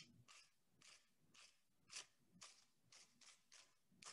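Very dry, brittle fallen leaves rubbed together in the hands: a faint, crisp rustling in short strokes, about three a second.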